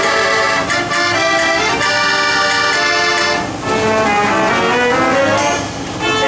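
The Peacock Organ, a roll-played automatic orchestrion of accordions and organ pipes, playing a tune in sustained chords and melody lines, with brief lulls between phrases about three and a half and six seconds in.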